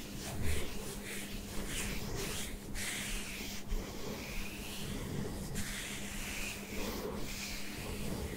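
Hand rubbing and stroking over a buzz-cut scalp, the short stubble giving a scratchy rustle in repeated strokes.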